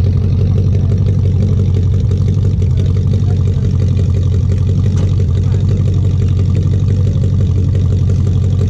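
Rear-mounted engine of a kit car idling steadily, heard close up at its twin exhaust pipes as a constant low, even hum.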